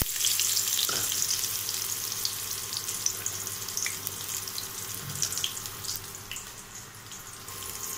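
Chopped onions dropped into hot oil in a stainless-steel kadai, with a knock as they land, then a steady sizzle that slowly dies down over several seconds.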